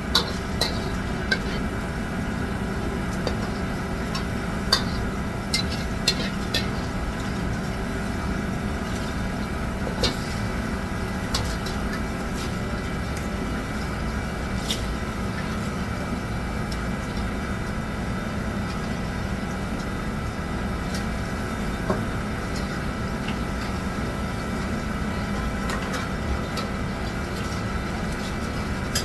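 Restaurant kitchen ambience: a steady droning hum, with scattered sharp clinks of dishes and utensils, most of them in the first several seconds.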